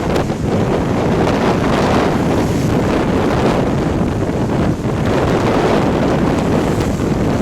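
Tropical-storm wind buffeting the microphone: a loud, steady rumbling noise that swells and dips slightly with the gusts.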